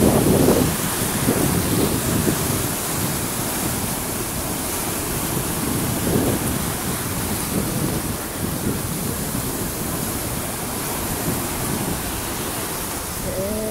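Rough sea surf breaking and churning against a seawall, a steady wash of noise, with wind gusting on the microphone.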